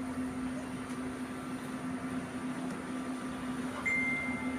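Steady hum and hiss from a live PA sound system left idle between mic checks. A thin, high steady tone comes in near the end.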